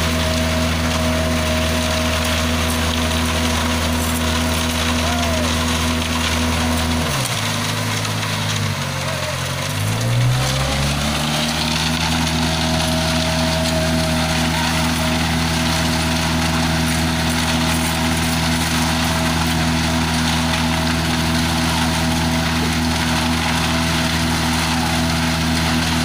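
Self-loading concrete mixer's diesel engine running steadily at raised revs while the drum discharges concrete down the chute, with a thin steady whine over the engine note. About seven seconds in the revs fall away, then climb back to the same steady pitch a few seconds later.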